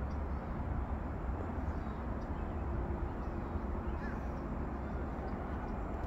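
Steady low rumbling outdoor background noise with no distinct event.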